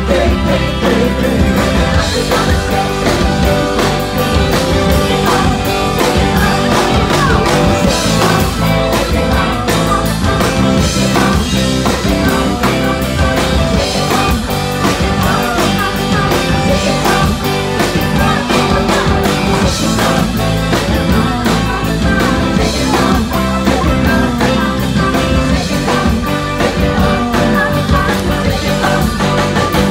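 Live rock band playing a song, with electric guitar, drum kit and singing.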